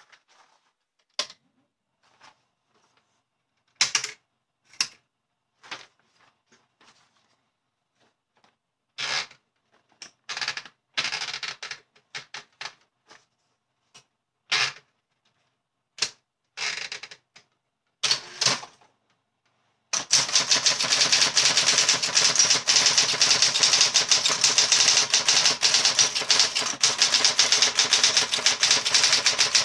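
Olympia SGE 35 electric typewriter. For about the first two-thirds come scattered single clicks and clunks as paper is fed in and the carriage is set. Then its motor starts humming and fast, continuous typing begins, many key strikes a second.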